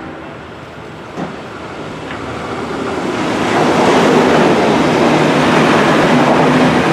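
V/Line VLocity diesel multiple unit passing at speed. The rumble of its wheels on the rails and its underfloor diesel engines swells over a few seconds, then stays loud as the carriages go by, with a steady engine hum showing near the end. There is a single sharp click about a second in.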